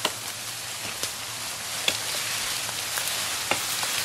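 Leafy tree branch dragged through grass and brush: a steady rustling crackle of leaves and twigs, with a few sharp snaps.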